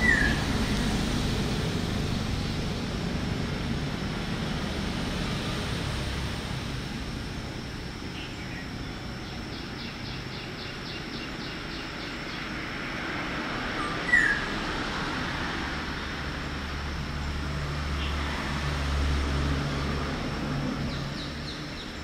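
Black-hooded oriole giving two short, falling calls, one at the start and a louder one about fourteen seconds in, over a steady low rumble.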